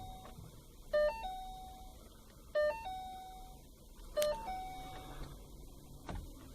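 Car dashboard warning chime sounding three times, about once every second and a half, each a brief run of notes ending on a held tone; a single click near the end.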